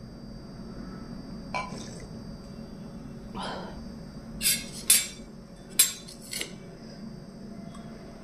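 Tableware handled at a meal: an aluminium soda can put down and a spoon clinking and scraping against ceramic bowls and plates. About half a dozen short, sharp clinks, the loudest ones bunched near the middle.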